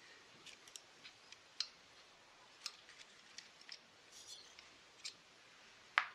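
Light metal clicks and ticks of a screwdriver tip and fingers working at a bit of twisted wire on a chainsaw's choke lever, scattered at uneven intervals, with the sharpest click near the end.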